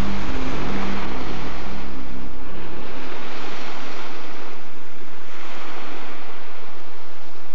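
Rushing sea noise, swelling and easing about every two seconds, over the last low notes of background music that fade out about three seconds in.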